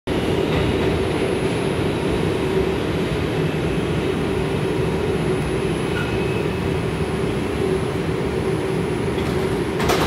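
The inside of an R142 subway car running as it pulls into a station: a steady rumble with a held hum, then a single sharp clunk near the end.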